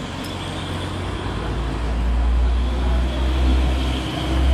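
Low rumble of a motor vehicle engine that grows louder from about a second in.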